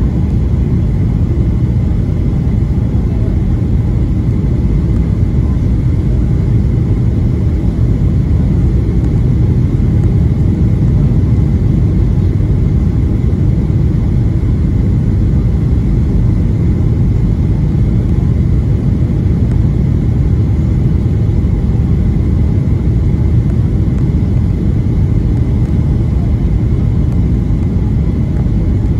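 Steady low rumble of engine and airflow noise inside the cabin of a Boeing 737 descending on approach with its flaps extended, with a faint steady whine above it.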